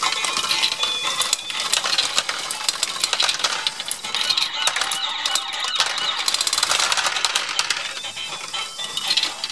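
Small plastic balls clattering through a Lego Great Ball Contraption module, a pachinko-style board fed by a chain-driven ball lift: a dense, continuous rattle of small clicks.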